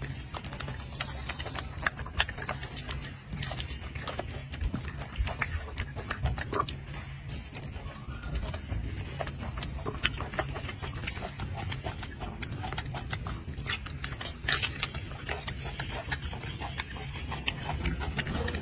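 Golden snub-nosed monkey eating fruit close to the microphone: many small irregular crunching and smacking clicks over a steady low rumble.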